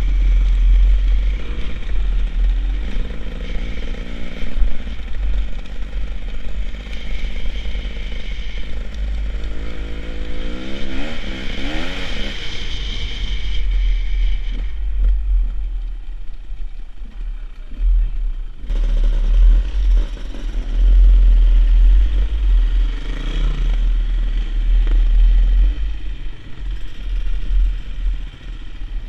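Enduro dirt bike engine running under the rider, with heavy wind rumble on the microphone. The engine revs up, climbing in pitch, about ten seconds in. Its higher sound falls away for a few seconds past the middle and comes back suddenly.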